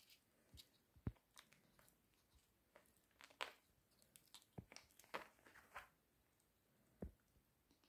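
A ferret gnawing and biting a hard chew stick: quiet, scattered crunches and clicks of teeth on the stick, with a few low thumps, the loudest about a second in.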